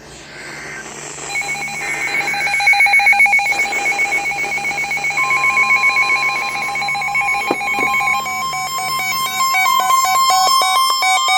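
Emergency Alert System alert tones: a brief warbling data burst at the start, then rapid electronic beeping that switches between pitches. A steady tone joins about halfway through, and a tone glides upward near the end.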